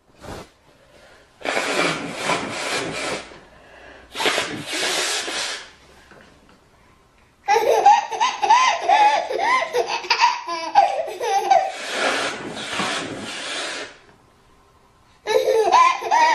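A baby's belly laughter, high and bouncing, breaking out in fits between loud, harsh nose blows: two blows in the first few seconds, a long laughing fit in the middle, another blow, then more laughing near the end.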